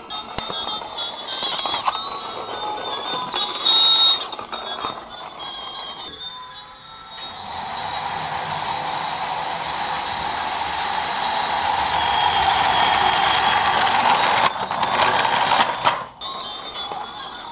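Battery-powered toy train's motor and wheels whirring steadily as it runs across a wooden floor, growing louder over several seconds, then cutting off shortly before the end.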